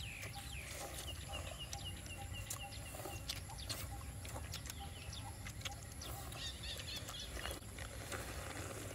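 A bird repeats short high chirps, about four a second, starting about a second in, with a few more chirps later, over faint scattered clicks and slurps of people eating noodle soup with chopsticks from bowls.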